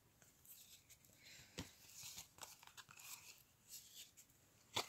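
Faint rustling and sliding of cardboard trading cards being flipped through by hand, with two sharp taps, one about a second and a half in and one near the end.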